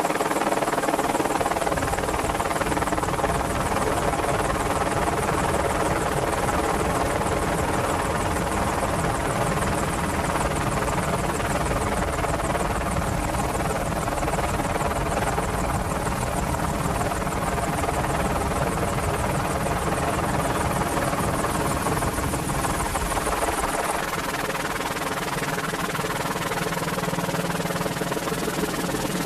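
Merlin helicopter's three turbine engines and rotors running steadily, a constant whine and thrum with no change in pitch or level.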